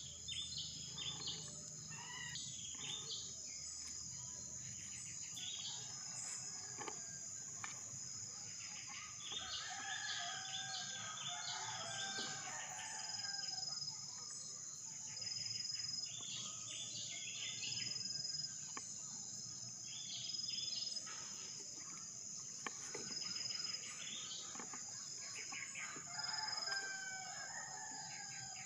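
Birds chirping and calling repeatedly in short bursts of clusters, over a steady high-pitched insect drone.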